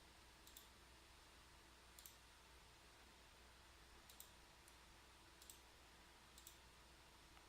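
Near silence with about six faint, sharp clicks spread irregularly through it, over a low steady hum: the controls of a Keysight E5052B signal source analyzer being operated to set up measurement markers.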